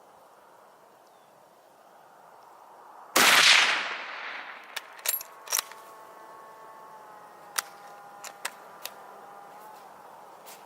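A single shot from an 8mm Mauser bolt-action rifle a little over three seconds in, trailing off over about half a second. Several light clicks follow over the next few seconds.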